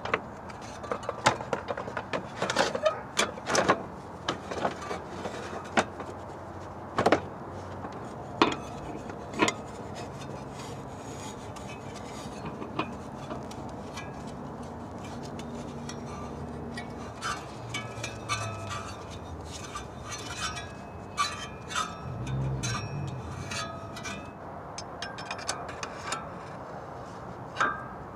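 Irregular clicks, knocks and rubbing of gloved hands, tools and parts at work in an engine bay, refitting the serpentine belt around its pulleys and the fan shroud.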